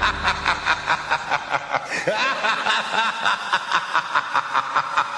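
A person laughing, a long unbroken run of short quick 'ha' pulses, about five a second.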